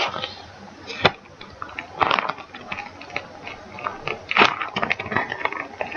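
Plastic packaging of cross-stitch kits and charts crinkling and rustling as it is handled, in irregular bursts, with a sharp tap about a second in.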